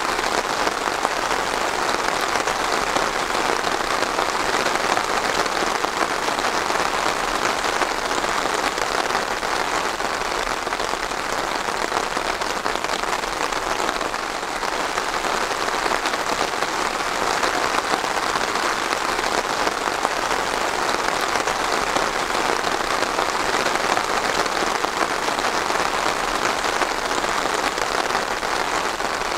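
Steady rain falling, an even hiss of many drops that holds without a break.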